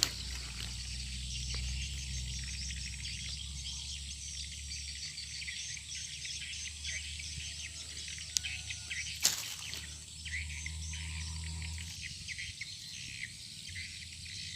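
A continuous outdoor chorus of insects chirring with birds chirping over it, under a low rumble that fades about twelve seconds in; two sharp clicks near the middle.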